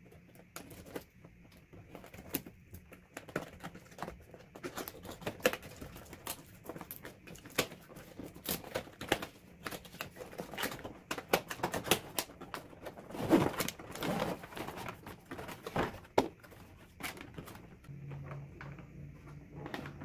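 Cardboard box and plastic packaging being opened by hand: irregular taps, clicks, scrapes and rustles, with a busier stretch of rustling about two-thirds of the way through.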